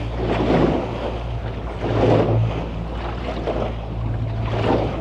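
A boat's engine running steadily under way, with waves washing around the hull and wind gusting on the microphone.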